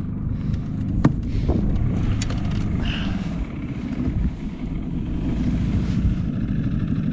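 Bass boat's outboard motor running with a steady low rumble. A few sharp clicks and knocks of gear being handled come in the first couple of seconds.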